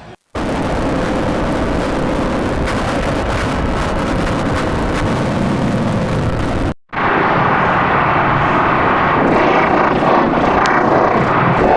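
Loud stadium crowd roar, a dense steady din that cuts off abruptly about halfway through and comes straight back. A drawn-out 'siuuu' shout begins right at the end.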